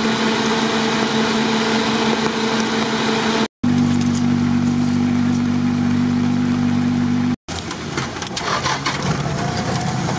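Off-road 4x4 engines idling steadily, with a low even hum. After two brief dropouts in the sound, an engine running on the move with rattles, rising in pitch near the end.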